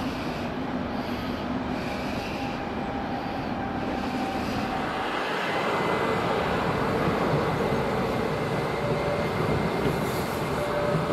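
Stadler FLIRT 3 electric multiple units running slowly out of the yard: wheel and rail noise under a faint steady electric whine. The sound grows louder over the second half as the train comes closer.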